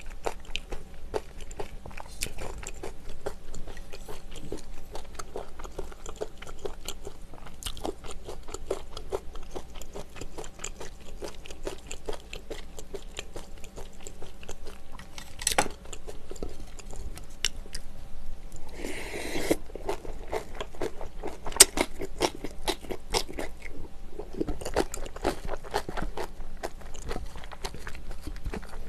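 A person chewing food close to the microphone, starting on a bite of green onion kimchi, with wet mouth sounds and small irregular clicks throughout.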